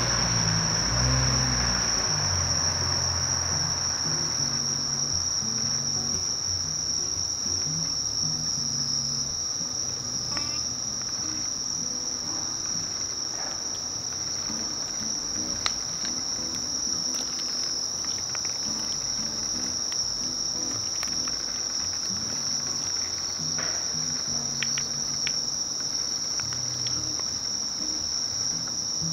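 Night-time insect chorus of crickets and katydids: one steady, unbroken high-pitched trill. A low rumble fades out in the first couple of seconds.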